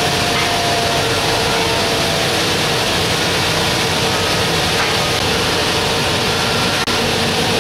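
Steady woodshop machinery noise running unbroken: a loud even hiss with a faint low hum, with one brief click near the end.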